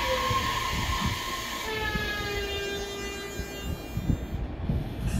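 Tobu 60000 series electric train pulling out of a station: the VVVF inverter and traction motors whine with several tones that slide in pitch as it picks up speed. The whine fades after about four seconds, and low knocks of the wheels over rail joints take over near the end.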